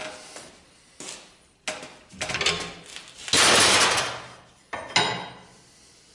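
Knocks and metallic clanks of steel tools and a leaf-spring piece being handled at a bench vise, with a louder rattling metal clatter about three seconds in that dies away over about a second.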